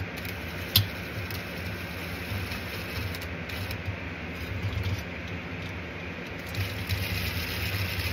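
Cordless drill driving screws into a diesel heater's housing in short runs, with a sharp click about a second in, over a steady low hum.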